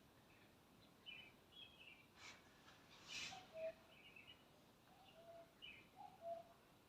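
Faint birds calling: scattered short high chirps, and from about halfway a lower two-part note repeated about once a second. Two soft swishes about two and three seconds in.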